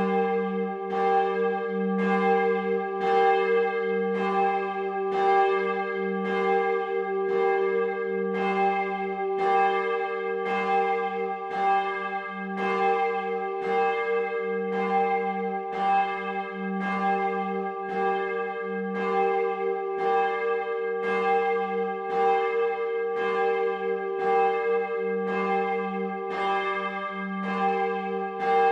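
Several large swinging bronze church bells of Bremen Cathedral ringing together. Their strokes follow one another quickly and evenly, and the ringing tones overlap.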